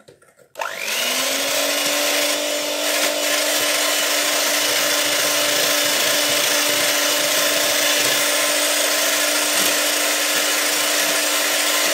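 Electric hand mixer starting about half a second in, its motor spinning up quickly and then running at a steady whine as the wire beaters whisk eggs and sugar.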